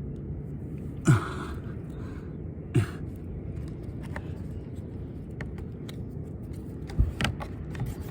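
A roof dryer vent cap being handled: scattered clicks and knocks of its parts over a steady low background rumble, with two louder short sounds that drop quickly in pitch about one and about three seconds in.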